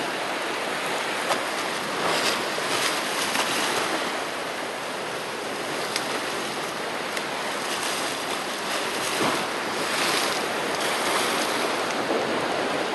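Sea surf washing against the rocks at the foot of a rocky shore ledge: a steady rushing wash that swells a little now and then.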